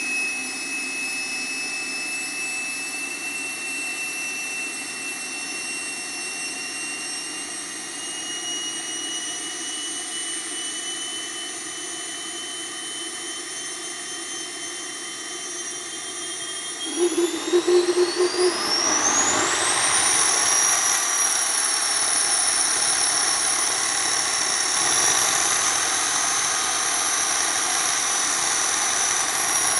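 Small homebuilt gas turbine, built on a Subaru Legacy ball-bearing turbocharger, running with a high whine that creeps slowly upward in pitch. Past the middle it spools up fast: after a few uneven pulses, the whine glides sharply higher and the combustion rush gets louder. It then holds steady at the higher speed.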